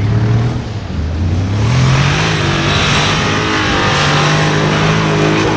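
Mercedes G63 AMG 6x6's twin-turbo V8 revving under load as it drives through loose beach sand. The engine note dips, climbs about a second in, and holds high.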